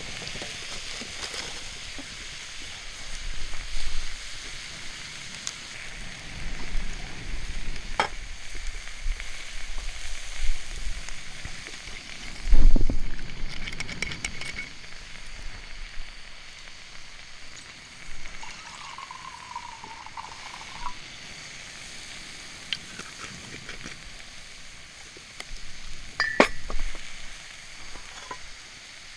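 Giant shiitake mushrooms sizzling as they grill over a wood fire, a steady hiss broken by a few sharp clinks and knocks, with one heavy thump about halfway through.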